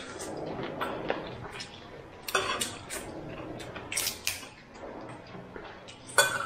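Dishes and cutlery clinking and clattering at a meal, with a few sharper clinks about two seconds in, around four seconds in and near the end.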